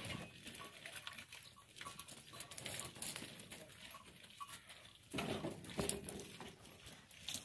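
Goats moving about, with scattered light pattering and shuffling and a louder stretch about five seconds in.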